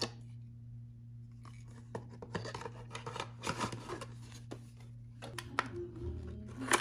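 A small paperboard box being handled: card flaps rubbing and scraping, with scattered light clicks as a plastic camera mount is slid about inside it and the lid flap is folded and tucked shut.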